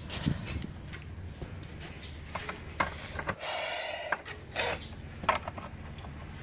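Spanner and hands working the nut on a battery cable terminal at a truck's fuse box: scattered metal clicks, with a rasping scrape about three and a half seconds in and a shorter one just after.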